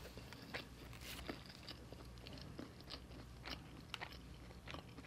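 Faint close-up chewing of a mouthful of lamb biryani eaten by hand, with scattered small wet clicks and smacks of the mouth.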